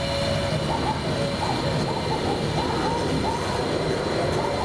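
CNC router spindle running steadily while cutting high-density tooling foam, a constant high whine over a steady machine noise. A fainter tone from the axis drives rises and falls in quick loops as the tool moves.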